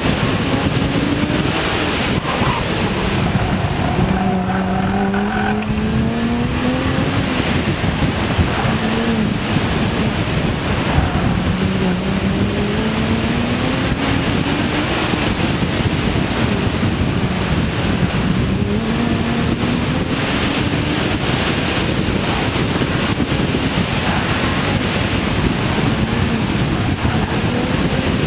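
BMW 1M's twin-turbo inline-six driven hard, its engine note climbing in several long rising revs and dropping back each time as the car accelerates and lifts off between cones. Under it runs a steady rush of wind and tyre noise.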